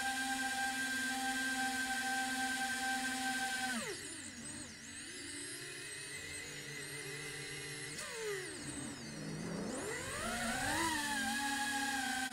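FPV quadcopter's electric motors and propellers whining at a steady pitch, then dropping sharply about four seconds in as the throttle is cut while the quad goes inverted. The pitch wavers low with gliding tones for several seconds, then spools back up to the steady whine about ten seconds in.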